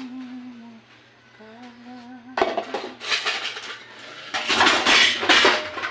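Dishes and cutlery clattering loudly in hand dishwashing, starting about two and a half seconds in and heaviest near the end. Before the clatter, a voice sings a held note.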